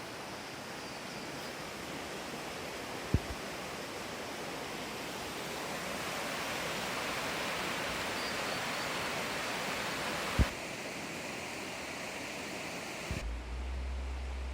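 Mountain stream water rushing steadily, with two sharp knocks, about three and ten seconds in. About a second before the end the rush thins and a low steady hum sets in.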